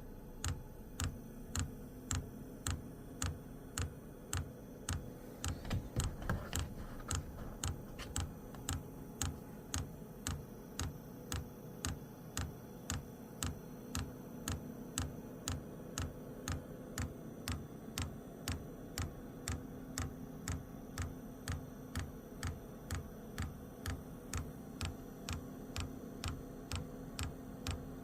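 Diesel heater's electric fuel dosing pump clicking at a steady rate of about one and a half to two ticks a second, over a steady hum. The pump, now fitted facing the right direction, is working and priming the fuel line.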